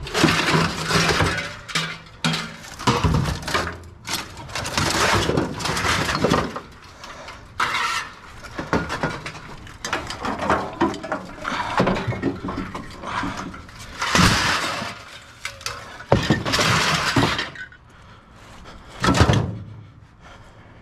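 Pieces of scrap metal being tossed onto a pile, clattering and crashing in a run of loud bursts a second or two apart.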